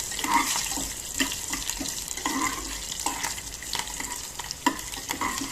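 Tempering ingredients sizzling in hot oil in a pan, with scattered pops and clicks. The steady sizzle is the sign that the oil is hot enough to fry the spices and lentils for lemon rice.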